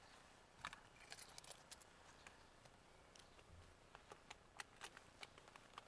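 Near silence inside a car, broken by faint scattered clicks and taps from the camera being handled and repositioned.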